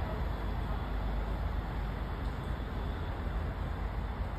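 MBTA Commuter Rail push-pull train pulling away from the platform, a steady low rumble of the train on the track.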